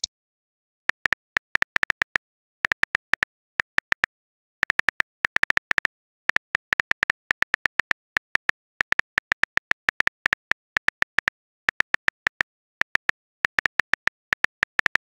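Simulated phone-keyboard typing clicks from a texting-story app as a message is typed out: quick runs of identical short clicks broken by brief pauses, with dead silence between them.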